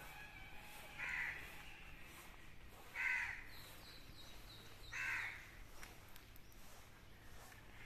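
A crow cawing: three single caws spaced evenly about two seconds apart, with faint high chirps between the second and third.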